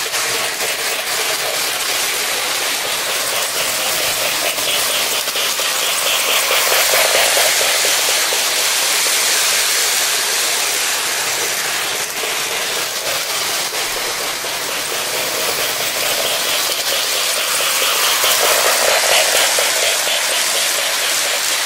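Lionel O-gauge model passenger train running on FasTrack: a steady rushing hiss of wheels and motor with fine rapid clicking, swelling louder as the cars pass close about seven seconds in and again near the end.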